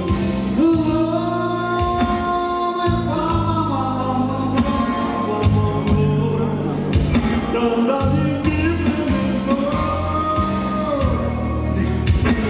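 Pop song with a steady drum beat, a steady bass line and long held, gliding melody notes, with singing.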